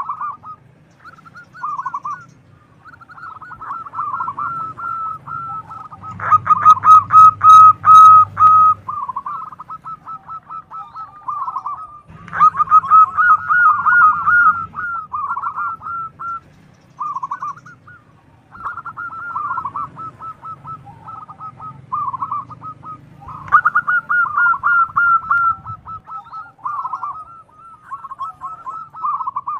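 Zebra dove (perkutut) cooing: phrase after phrase of quick, stuttering high coos with short pauses between them. The loudest phrases come about six, twelve and twenty-three seconds in.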